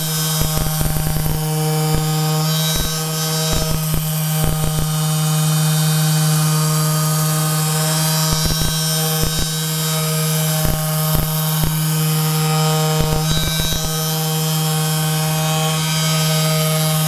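A small motor humming steadily, like a power tool, with several short clusters of rapid knocks about a second in, near three, four and a half, nine, eleven and thirteen seconds in.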